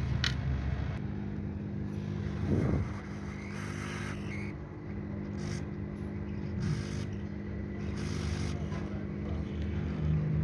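Hot air rework gun blowing with a steady low hum while the solder under a phone's replacement charging port is reflowed to attach it to the board.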